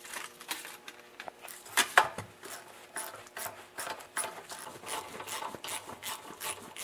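Socket ratchet clicking in quick runs as bolts are turned out, with a louder metal knock about two seconds in.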